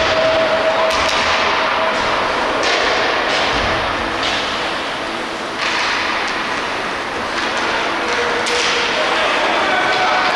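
Ice hockey play in an indoor rink: skate blades scraping the ice, with several sudden knocks from sticks, puck or boards a second or two apart.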